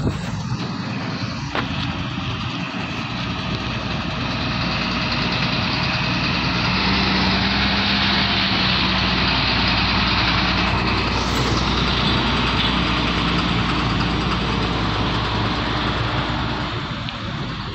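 Diesel engine of a HOWO semi-truck tractor pulling a container trailer at low speed as it drives past, growing louder toward the middle and easing off near the end.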